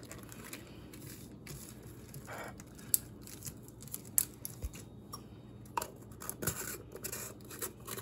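Small plastic seed baggie being handled: soft rustling of the plastic with scattered sharp clicks.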